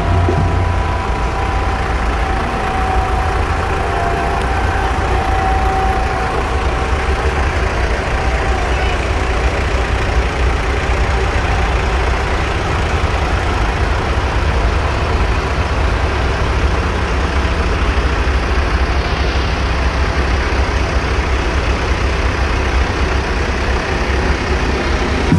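Diesel engines of several farm tractors running at low speed as they drive slowly past one after another, a steady low engine rumble.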